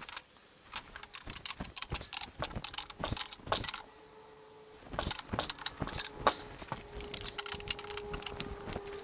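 A large nut being cranked down on a steel bolt with a wrench, to press a bent jockey wheel bracket straight: rapid metallic clicks and clinks of the tool and metal parts. There is a short pause about four seconds in, then the clicking resumes.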